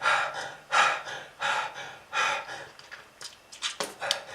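A person gasping heavily for breath, four loud breaths about 0.7 s apart, then a few short sharp catches in the throat near the end.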